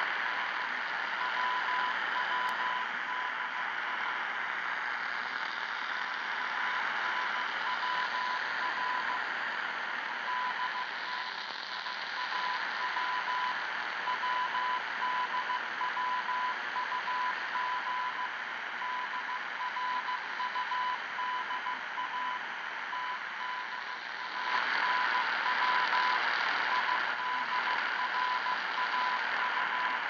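Morse code received on a portable shortwave radio tuned to 5800 kHz in the 49-metre band: one beep tone keyed on and off in dots and dashes, over a constant hiss of static from the radio's speaker. The static grows louder for a few seconds near the end.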